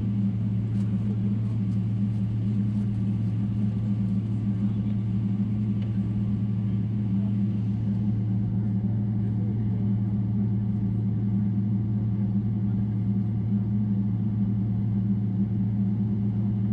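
Steady cabin drone of a Boeing 777-300ER's GE90 engines heard from inside the passenger cabin: a constant low hum over a broad rush of noise, with a few faint rattles in the first few seconds.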